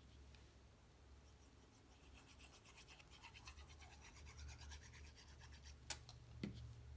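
Quick, scratchy rubbing on cardstock for a few seconds, as a paper strip is pressed and smoothed down onto a card panel. It ends with a sharp click and a softer knock a moment later.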